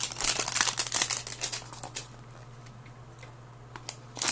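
Crinkling and rustling of card-pack packaging and trading cards being handled. It is dense and crackly for about two seconds, then turns quieter with a few scattered clicks and one sharp click near the end.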